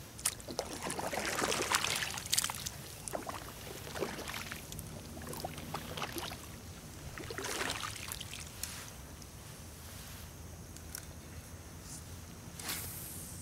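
Kayak paddle strokes in the water, splashing and dripping in two louder swells, about a second in and again past the middle, with a few short knocks between them.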